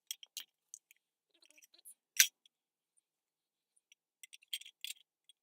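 Scattered clicks and light clanks of small metal parts and hand tools being handled, with one sharper, louder clank about two seconds in and a quick run of clicks near the end.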